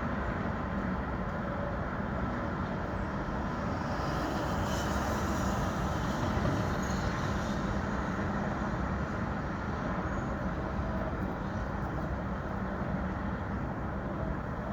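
City street traffic noise: a steady low rumble of passing vehicles, with a faint higher hiss rising briefly around the middle.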